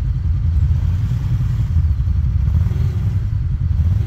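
Side-by-side UTV engine running steadily under load as the machine crawls up a steep, rocky hill trail, a continuous low rumble.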